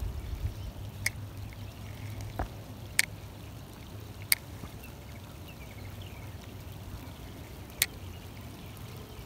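Steady rain falling, an even hiss, with four sharp clicks scattered through it.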